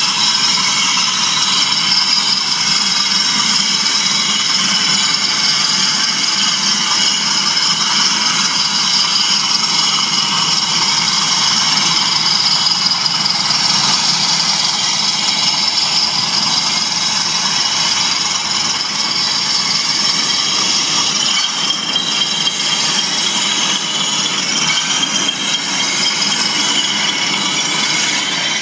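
Model train of two class 20 diesel locomotives hauling HAA merry-go-round hopper wagons, running steadily with a diesel engine drone and the rattle of wheels over the track.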